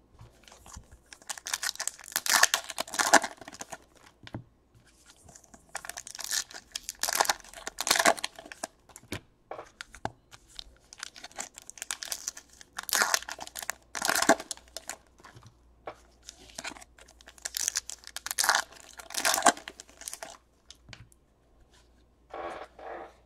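Foil wrappers of 2017 Topps Gold Label baseball card packs being torn open and crinkled. The sound comes in a string of irregular crackly bursts, the packs being opened one after another.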